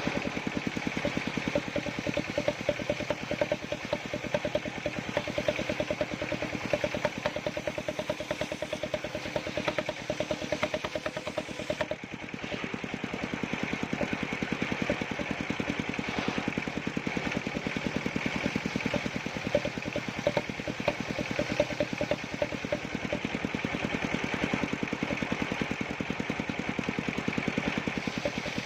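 Engine of a wood-cutting machine running steadily with a fast, even beat, dipping briefly about halfway through.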